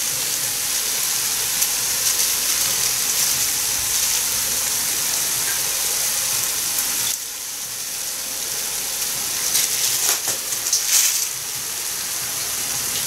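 Pumpkin, onion and carrot sizzling steadily in a frying pan on a gas stove. The sizzle drops slightly about seven seconds in, with a few brief louder noises around ten to eleven seconds in.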